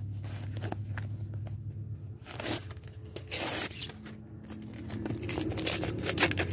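Paper sticker packet being torn open by hand: a couple of short rips, then a run of crinkling rustles near the end, over a low steady hum.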